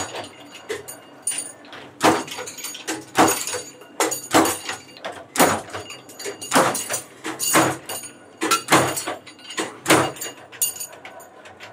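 Flywheel-driven mechanical power press working steel rod: a regular run of heavy metallic strikes, about one a second, each followed by a short ringing clatter.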